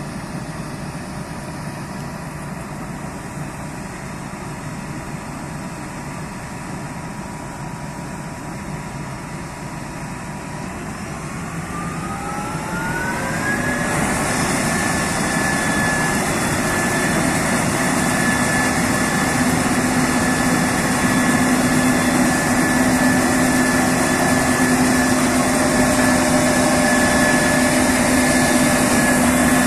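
Case IH Axial-Flow 6150 combine harvester running steadily, then revving up over a few seconds about ten seconds in with a rising whine. It then settles into a louder steady run with a high whine and hiss.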